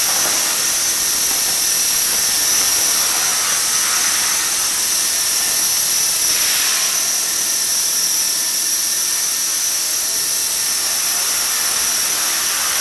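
Align T-Rex 450 SE electric RC helicopter hovering low. It makes a steady high-pitched whine from its brushless motor and gears over the swish of the spinning rotor blades.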